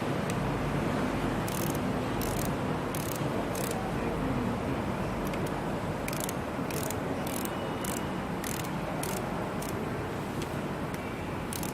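Hand ratchet wrench clicking as bolts are tightened on the engine block, in separate sharp clicks about one or two a second, with a pause partway through, over a steady background noise.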